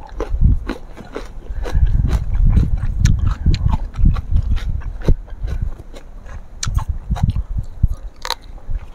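Close-miked chewing of food, with lip smacking and many short, crisp clicks of crunching throughout.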